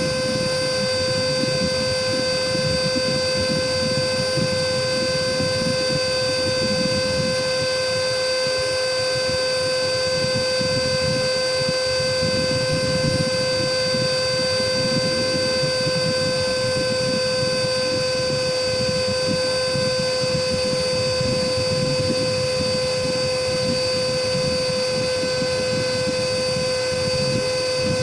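Cordless vacuum cleaner's motor running free with no load, a steady high whine at one unchanging pitch.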